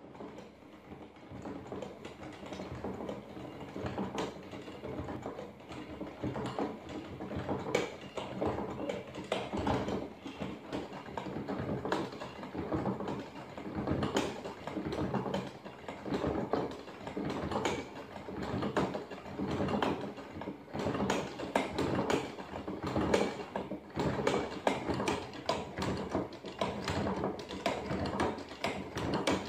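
Hand-cranked cardboard automaton with wooden craft-stick cams and followers, clicking and knocking in a quick, uneven clatter as the crank turns and the horse legs are pushed up and down.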